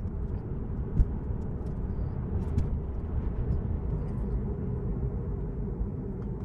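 Steady low road and tyre rumble inside a Tesla electric car's cabin while driving at about 30 mph, with one short sharp knock about a second in.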